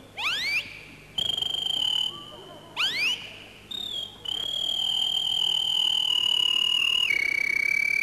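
A man whistling bird-song imitations into a handheld microphone. There are quick upward-sweeping whistles about half a second in and again around three seconds, between long held whistled notes. The last held note steps down in pitch about seven seconds in.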